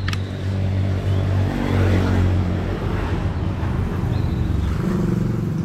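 Road traffic: a motor vehicle's engine running close by, with a wider rush of engine and tyre noise that swells about two seconds in as a vehicle passes, and a change in the engine note near the end.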